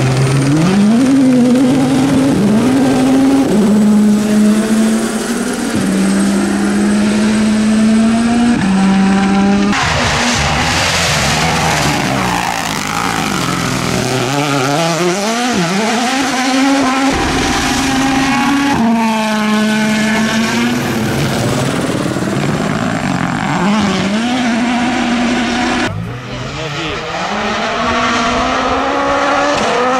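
WRC Rally1 cars' turbocharged four-cylinder engines driven hard on a gravel stage, one car after another: the pitch climbs and drops with each gear change, the sound switching abruptly from car to car twice, with tyres and gravel hissing.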